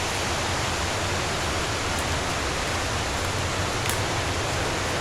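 Steady rush of a large waterfall's falling water, an even unbroken noise.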